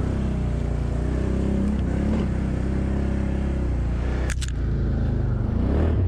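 ATV engine pulling up a snowy slope at low speed, its pitch rising and falling with the throttle. A single sharp knock about four seconds in.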